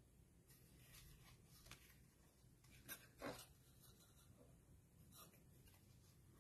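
Near silence, with faint rustling of a paper tag and twine being handled and tied into a loop, and a couple of slightly louder rustles about three seconds in.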